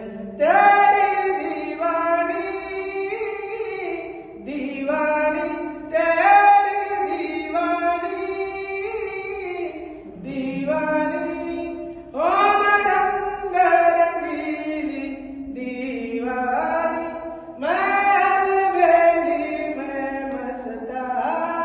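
Several voices singing a chant together in a rock-cut cave, in phrases of long held notes that carry on in the cave's echo; each phrase starts loudly and then holds.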